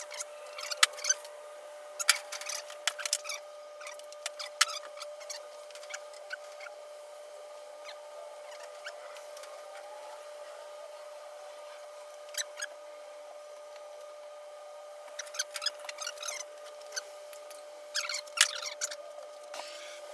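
Scattered light clicks and rustles of wire and heat-shrink tubing being handled, coming in clusters near the start and again near the end, over a faint steady hum.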